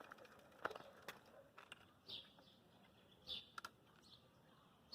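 Near silence with a few faint, short, high bird chirps and some light clicks.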